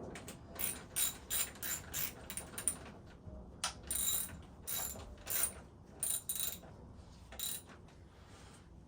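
Ratchet spanner clicking as a front fork clamp bolt is nipped up: a run of quick ratcheting strokes, then a few shorter bursts with pauses between them.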